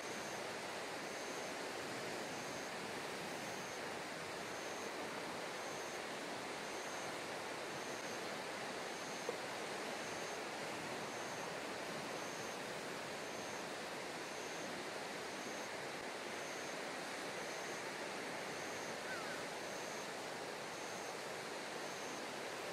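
Steady wash of sea water and surf, with a faint high pulse repeating a little more than once a second and one small click about nine seconds in.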